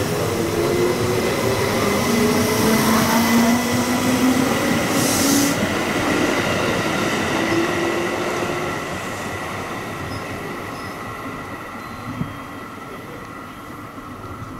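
Electric commuter train pulling out of the platform: its traction motors whine, rising slowly in pitch as it picks up speed, over the rumble of wheels on the rails. A short hiss about five seconds in; the sound then fades steadily as the train draws away, with a single click near the end.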